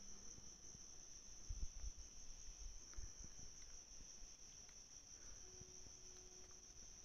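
Steady, high-pitched trill of insects, such as crickets, in the forest, with a few soft low thumps between one and three seconds in.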